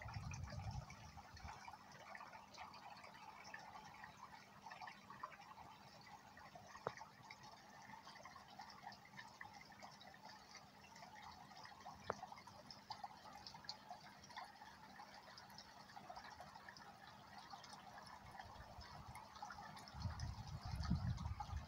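Faint water trickling and dripping into a garden pond, a quiet steady patter with a couple of tiny drips. A low rumble comes in near the end.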